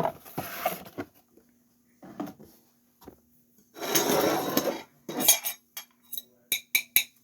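Slime-kit items and a bowl being handled and set down on a table: a brief rustle about four seconds in, then a quick run of light clinks and knocks.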